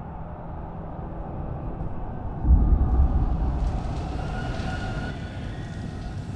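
A steady low rumble that swells suddenly and heavily about two and a half seconds in, then goes on with a hissing wash above it.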